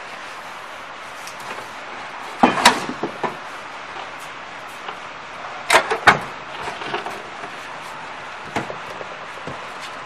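Chalk-making machine mould knocking against a wooden crate as it is handled and lifted out. There are two clusters of knocks a few seconds apart and a lone light knock later, over a steady hiss.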